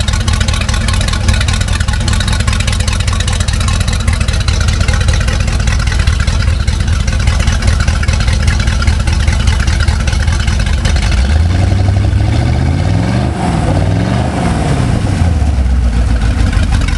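MerCruiser 383 Mag stroker V8 marine engine running on an engine stand, idling steadily. About eleven seconds in it revs up, its pitch climbing in two steps, then drops back to idle a few seconds later.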